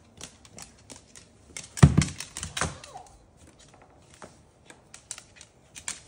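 Moluccan cockatoo's claws clicking and tapping on a hardwood floor as it moves about. Two thumps land about two seconds in, the first loud and the second smaller.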